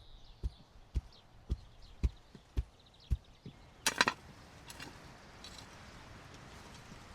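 Work setting a wooden fence post in the ground: a run of dull, evenly spaced thuds, about two a second, then a short sharp clatter about four seconds in.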